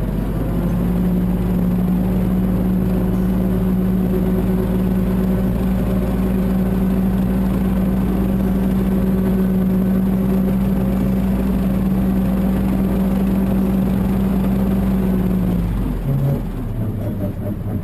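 Mahindra 1526 tractor's diesel engine running steadily at a raised speed, then dropping to a lower speed near the end.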